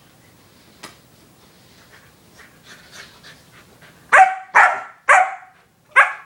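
Black Labrador retriever puppy giving four short, sharp, high-pitched play barks in quick succession about four seconds in, after faint scuffling.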